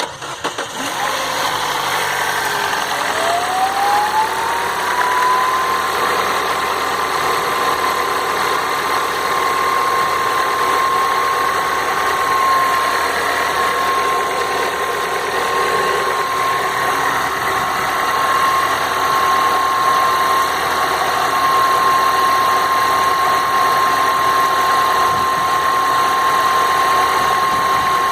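Citroën C4 Lounge's 1.6 THP turbo petrol engine starting cold and idling with a diesel-like clatter, a noise the owner calls chronic to Citroën. A whine rises in pitch over the first few seconds, then holds steady.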